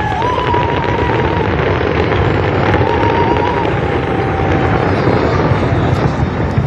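Fireworks display going off in a dense barrage, the bangs merging into a loud, steady rumble.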